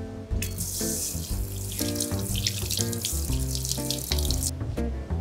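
Kitchen tap running into a stainless steel sink, with a hand under the stream; the water starts just under half a second in and stops about four and a half seconds in.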